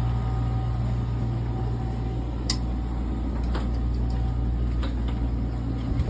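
Marinaire marine air conditioner running with a steady electric hum, and a few light clicks.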